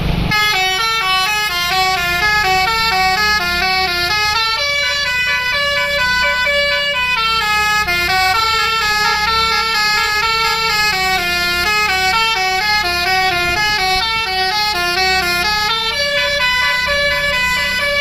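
Basuri musical 'telolet' horn on a tour bus, playing a long, fast melody of quickly changing notes, with the bus engine running low underneath.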